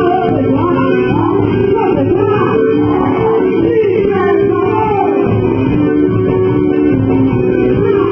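Loud quadrilha junina dance music: a voice singing over guitar. It sounds muffled, with little high end.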